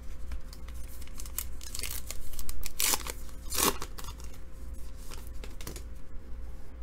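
Baseball cards being handled and slid one past another while a pack is sorted through, with scattered rustles and clicks and two louder swishes about three seconds in.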